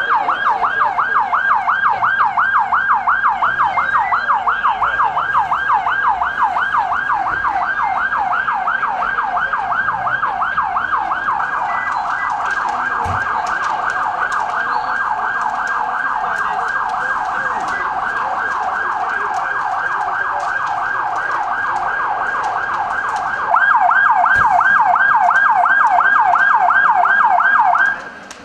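An emergency vehicle's electronic siren in a fast yelp, its pitch sweeping up and down about four times a second. It drops a little quieter through the middle, comes back louder near the end, and stops just before the end.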